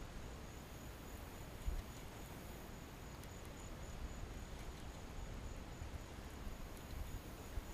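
An insect chirping steadily in a high, thin, evenly pulsing note, over faint hiss and a low wind rumble on the microphone. A short knock about two seconds in.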